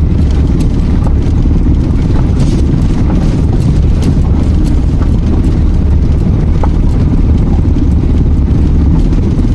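Vehicle driving over a rough, potholed gravel road: steady, loud, low rumble of tyres and running gear on the stony surface, with a few scattered clicks and rattles.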